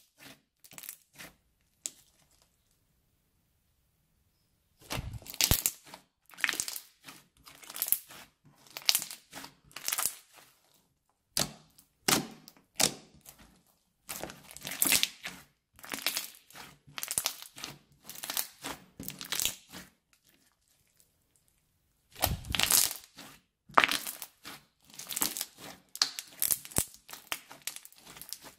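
Crunchy slime studded with small beads being squeezed, stretched and folded by hand: bursts of crackling, popping and sticky tearing as the slime is worked. There is a pause of a few seconds soon after the start and another, shorter one about two-thirds of the way through.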